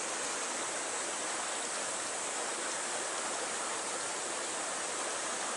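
Steady, even rush of flowing water from a stream or small waterfall.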